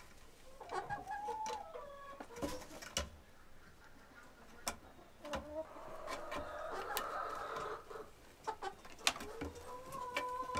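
Chickens clucking and calling in the coop, with short calls about a second in and a longer drawn-out call around the middle, among scattered sharp taps.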